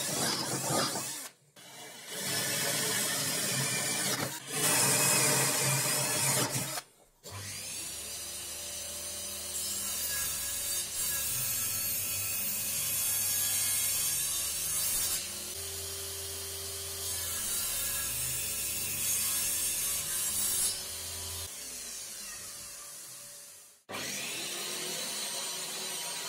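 Cordless drill boring into plywood in two loud runs with a short break between. Then a quieter, steadier sound with a low hum that holds and shifts in pitch a few times.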